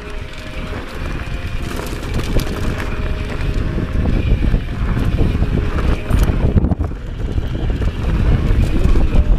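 Wind buffeting the microphone of a helmet-mounted camera on a fast mountain bike descent, mixed with the tyres and bike rattling over dirt and small rocks. It grows steadily louder as the speed picks up.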